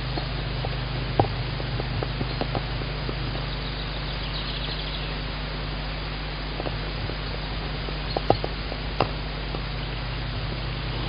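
Steady hiss and low hum from a nest-box camera's microphone, with a few isolated sharp clicks and taps, about one a second in and twice more near the end.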